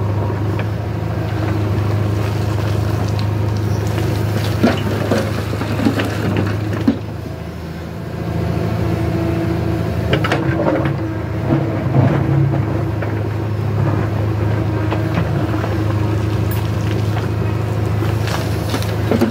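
JCB 3DX backhoe loader's diesel engine running steadily under load while the backhoe digs stony earth, with scattered knocks and scrapes of the bucket among the stones. Near the end the bucket tips its load of soil and stones into a tractor trolley with a short clatter.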